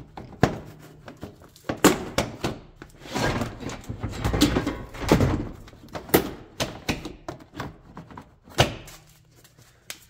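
Plastic interior floor trim of a Honda Element being pried up and handled: a string of irregular knocks, clicks and clip pops, with a denser stretch of scraping and rattling plastic in the middle.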